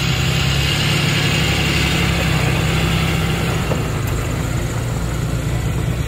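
Heavy-duty pickup truck engine running steadily as it drives past towing a loaded snowmobile trailer, with a low steady hum and road and tyre noise, easing off slightly as it moves away.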